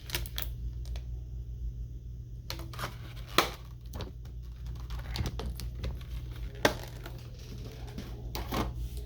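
Small objects being handled: scattered clicks and knocks with some rustling, one sharp knock a little past three seconds in and another near seven seconds, over a steady low hum.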